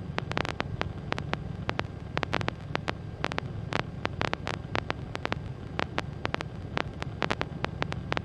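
Steady low drone of the Skyranger microlight's engine in cruise, with frequent irregular clicks and crackles over it.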